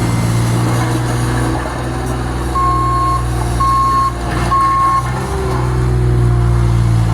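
Heavy truck's engine running with its reversing alarm beeping three times in a row.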